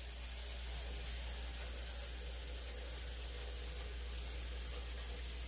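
Steady hiss with a low, even hum underneath, and no distinct event.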